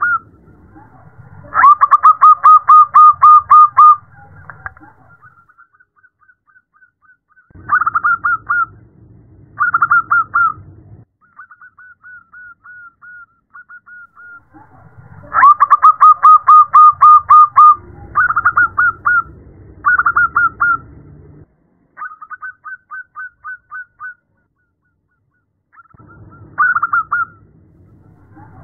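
Zebra dove (perkutut) calling: repeated bursts of rapid, staccato cooing notes. There are several loud trills of about two seconds each, shorter ones in between, and softer, quicker trills in the gaps. The call is presented as a female calling to attract a male.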